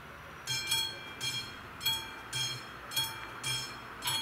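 Classic mechanical level-crossing warning bell starting to ring about half a second in, struck about twice a second: the crossing has just activated to warn of an approaching train.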